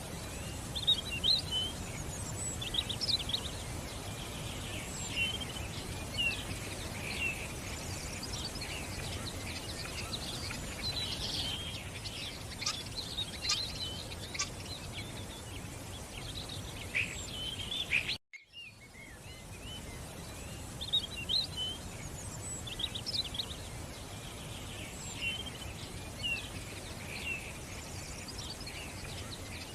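Many songbirds chirping and singing with short, high calls, over a steady low background rumble of outdoor noise. The sound drops out for a moment about two-thirds of the way through and fades back in.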